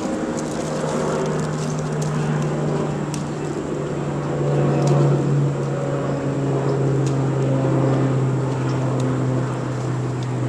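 An engine or motor running steadily with a low hum, rising a little in pitch and level about halfway through, with a few faint clicks.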